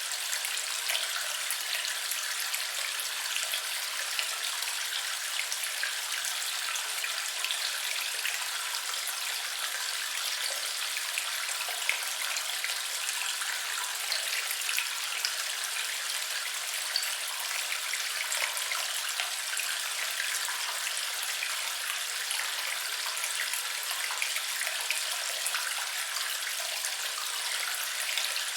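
Flowing water: a steady, even rush with many small splashes and drips pattering through it.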